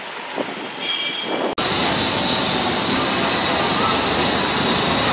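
Busy city street traffic: vehicle engines with a short horn toot about a second in. After an abrupt break the traffic noise turns louder and steady.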